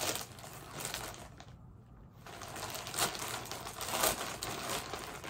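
Rustling and crinkling of clothing packaging being pulled at by hand to get it open, with a few sharp crackles and a short lull between about one and a half and two seconds in.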